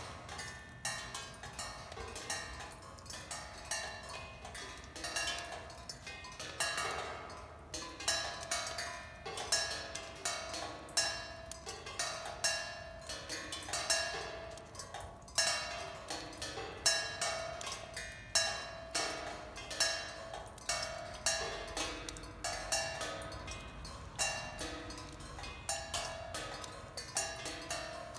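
Raindrops striking weathered cymbals mounted on stakes: an irregular patter of bright metallic pings, several a second, each ringing on so the cymbals hum steadily between hits.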